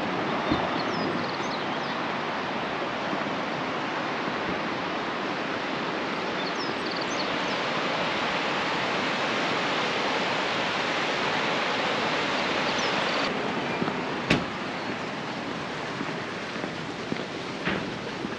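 Steady rushing of a stream, with a few faint bird chirps and a single sharp click about fourteen seconds in.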